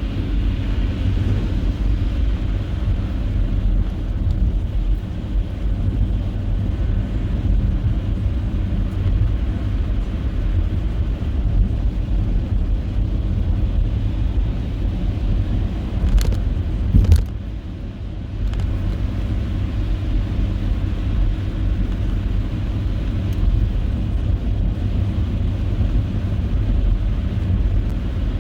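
Steady low rumble of a car driving along a snowy road. Two or three sharp clicks come just past the halfway point, and the rumble dips briefly right after them.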